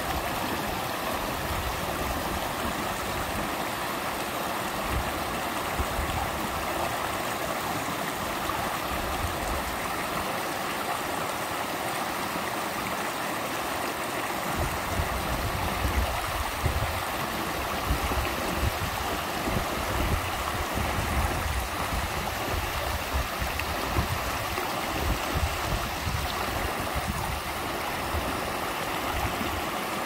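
Mountain stream running over rocks and small cascades: a steady rush of water. Uneven low rumbles come and go through the second half.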